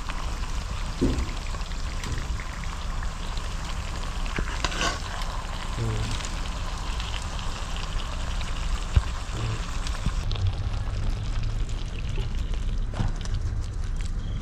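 Pork and elephant apple curry sizzling in a pan: a steady crackling hiss, with one sharp knock about nine seconds in.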